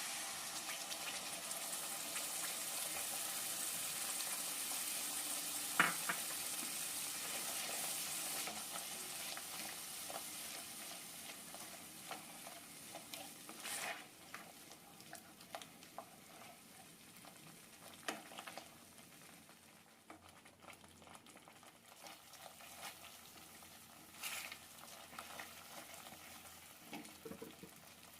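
Food frying in a pan with a sizzle that is strong at first and dies down over the next several seconds, broken by occasional sharp clinks of a spoon stirring against the pan.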